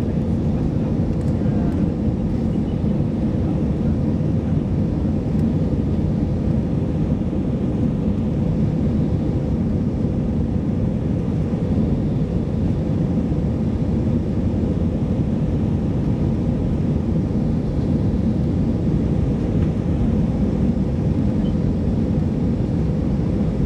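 Steady cabin noise inside an Airbus A319-100 climbing out: an even, low rush of engines and airflow with a faint steady hum, unchanging throughout.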